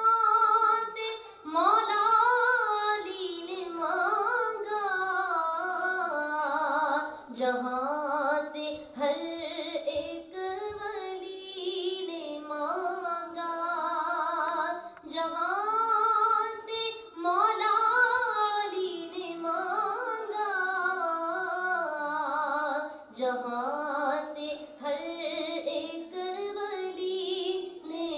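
A woman singing a naat, an Urdu devotional song, solo through a microphone: a long melodic vocal line with the pitch sliding and bending between held notes, broken by short breaths.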